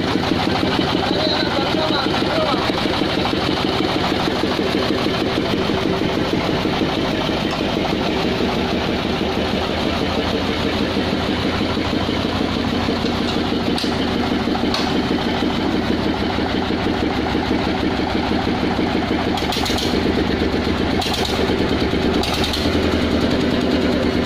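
Homemade 'grandong' dump truck's engine running steadily and loud, with a few short noises over it in the second half.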